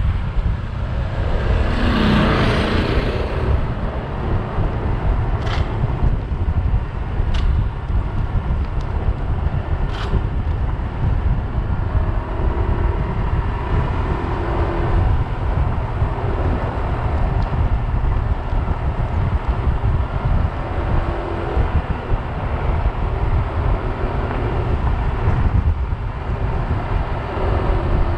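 Steady wind rumble buffeting the microphone of a moving action camera on an open road. About two seconds in, a louder swell as a vehicle passes close by.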